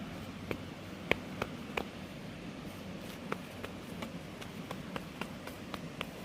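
About a dozen sharp little clicks and pops at uneven intervals, over a low steady background noise: saturated mud being worked underfoot as it turns from solid to liquid.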